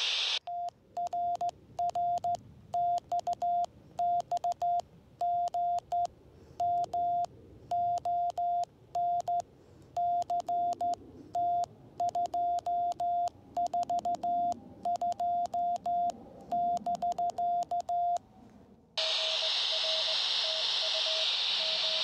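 Morse code heard as a radio's CW sidetone: a single steady beep switching on and off in dots and dashes over a quiet background while the operator sends. Near the end the receiver hiss comes back, carrying a fainter, slightly lower-pitched Morse signal keyed faster: another station coming in.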